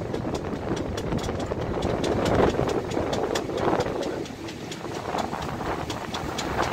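Passenger express train running, heard from its open door: a steady rumble and wind rush, with a rapid run of sharp clicks, several a second.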